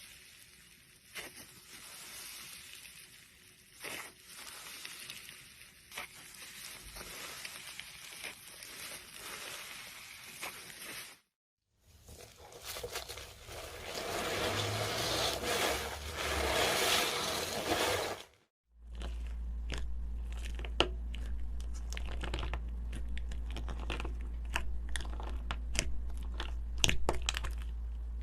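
Close-up crunching and scraping of material being mixed, in three short clips separated by brief silences. The last clip has many small crackles over a steady low hum.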